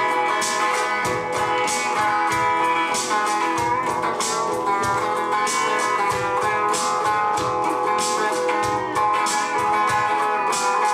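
Electric guitar playing an instrumental break in a country song: picked notes over a steady rhythm, with no singing.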